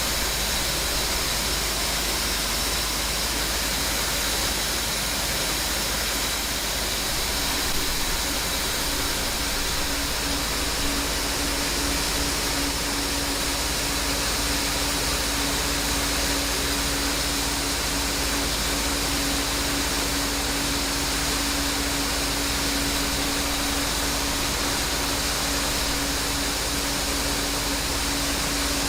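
Farm machinery running steadily: a continuous engine and machine drone with a thin high whine throughout, and a lower steady hum that comes in about eight seconds in.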